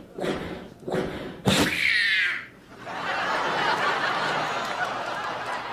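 A comedian's mouth-made sound effects: a few short vocal bursts, then one loud sudden effect with a ringing, sweeping pitch about a second and a half in. From about three seconds in, an audience laughs.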